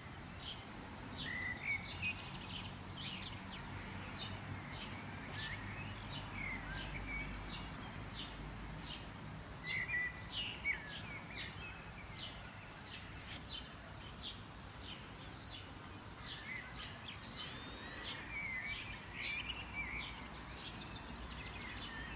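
Several small birds chirping and twittering continuously, quick short notes and warbling phrases, over a faint low background rumble.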